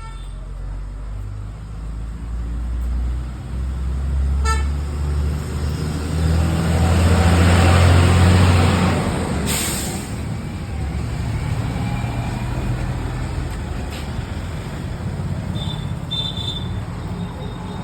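Road traffic: a motor vehicle passes close by, its rumble building to the loudest point about eight seconds in and then easing off. A short horn toot sounds about four and a half seconds in.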